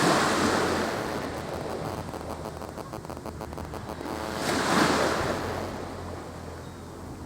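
Sea waves surging in and washing back on an incoming tide, two swells of rushing water about five seconds apart.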